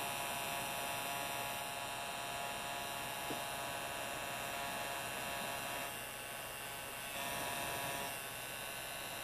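Handheld electric heat gun running steadily, its fan motor giving a constant hum while it warms and softens wet tint film on a headlight lens.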